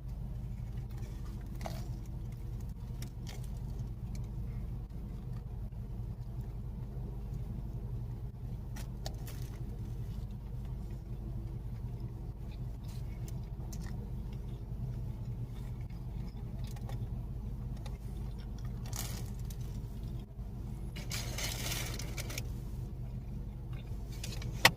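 Paper sandwich wrapper and food being handled while eating, with scattered small clicks and a short rustle about three-quarters of the way through, over a steady low hum.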